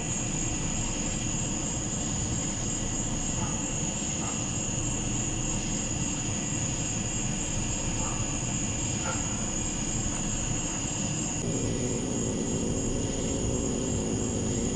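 Night insects trilling steadily in a high, unbroken chorus over a steady low rumble, which grows a little fuller about two-thirds of the way through.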